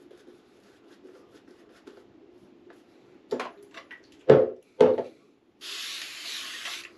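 Shaving brush faintly scrubbing lather on the face, then two loud short bursts about half a second apart, then a spray-bottle water mister hissing steadily for just over a second near the end.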